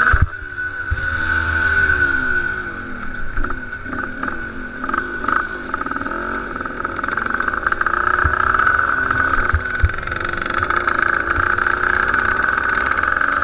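Motocross bike engine from the rider's point of view, revs dropping sharply as the throttle is closed just after the start, then rising and falling with the throttle as the bike rolls slowly along.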